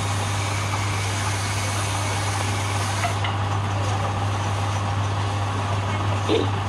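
Wood lathe's electric motor running steadily with a constant low hum, while sandpaper is held against the spinning wooden spindle, adding a steady rubbing hiss.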